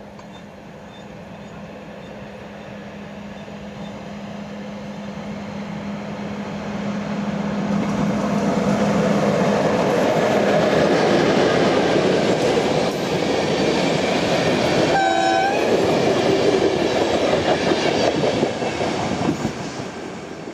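Croatian Railways passenger train, an electric locomotive hauling coaches, approaching and passing close by. A steady hum swells into a loud rumble and clatter of wheels on the rails, with a short horn blast about fifteen seconds in, then fades near the end as the train moves away.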